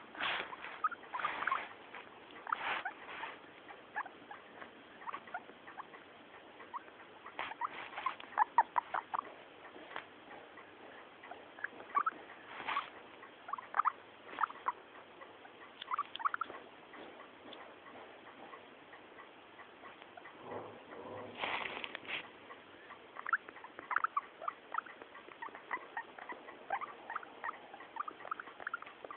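A guinea pig making many short, quick squeaky sounds in irregular clusters, with a louder, rougher stretch about two-thirds of the way through.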